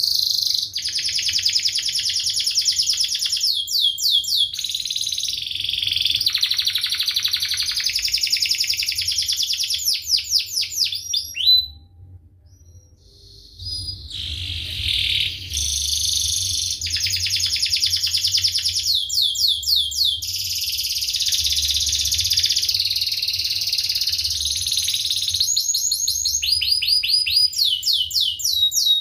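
Domestic canary singing a long, fast song of rolling trills and rapid repeated chirps. The song comes in two long phrases with a short break about twelve seconds in.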